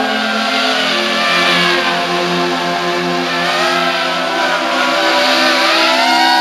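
Brushless motors and propellers of an FPV quadcopter whining in flight, several tones sliding down and back up together as the throttle changes, highest near the end.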